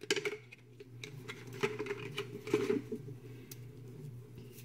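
Clear plastic packaging being opened and handled: a run of small plastic clicks and crinkles that thins out after about three seconds.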